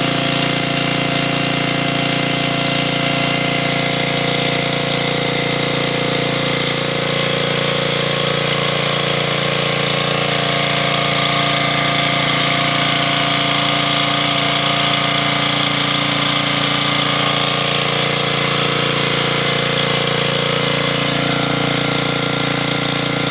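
Small gasoline engine of an old Dayton portable generator, converted to run on propane through a venturi on its Kawasaki carburettor, running at a steady speed.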